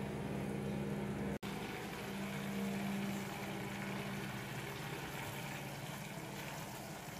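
Butter, lemon and caper pan sauce bubbling and sizzling steadily in a frying pan over high gas heat, with a steady low hum underneath. The butter is melting and starting to brown, the last stage before the sauce is done.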